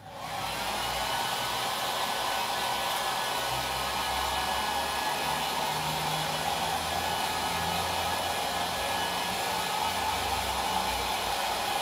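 Electric hot-air dryer switched on and running steadily, blowing on fresh paint to dry it before the next stencil layer goes on.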